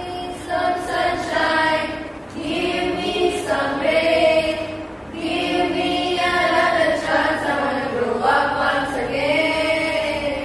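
A group of voices, mostly women's, singing or chanting together in chorus, in long held phrases with short breaks between them.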